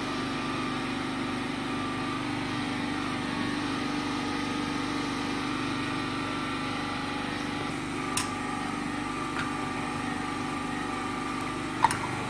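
Generator engine running steadily while the mains power is out, with a few short clicks in the second half.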